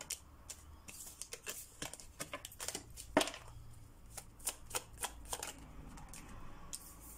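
Tarot deck shuffled by hand: a run of quick papery clicks and slaps as the cards are pushed and tapped together, the loudest about three seconds in, thinning out over the last couple of seconds.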